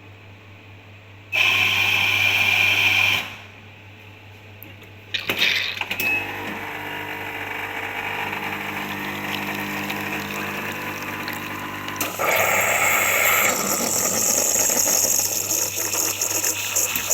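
Cappuccino coffee machine working: a loud mechanical burst of about two seconds, a pause, a few clicks, then a steady running sound with shifting low tones, turning into louder hissing about twelve seconds in.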